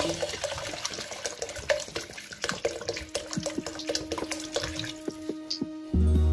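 Water poured from a plastic bottle into a pan of lentils and vegetables, a steady splashing stream. A low bass beat of music comes in near the end.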